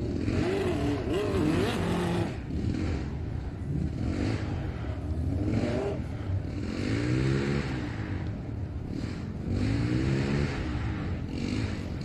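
Motorcycle engines in the camp below being revved again and again, each rev rising and falling in pitch over about a second, over a steady low rumble of idling engines.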